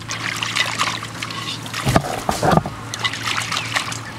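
Hands washing fish in water inside a clay pot: irregular splashing and sloshing as the fish are rubbed and turned, with a few heavier splashes around the middle.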